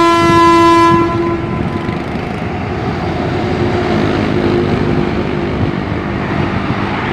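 A truck air horn sounds one loud blast for about a second, then the running engine and tyre noise of a passing tanker semi-trailer truck carry on, with a fainter steady drone joining about four seconds in.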